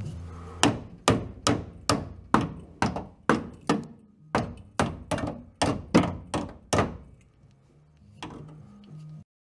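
Hand hammer striking the rusted sheet steel at the front corner of a 1964 VW Beetle's floor pan to knock out the old metal. Sharp metallic blows, each ringing briefly, about two and a half a second in two runs with a short pause just past the middle, then one fainter knock near the end.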